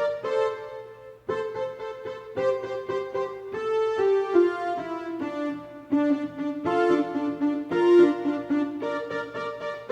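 Electronic keyboard playing a forró melody over chords in a piano-like voice, with new notes struck about once a second.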